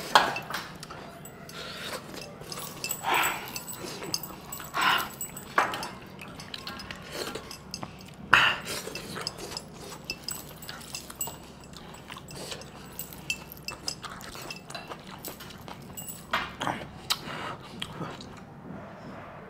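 Close-up eating sounds: chewing and smacking on mutton chaap curry, with short clinks of a spoon on a steel bowl and slurping of the gravy from the bowl's rim near the end.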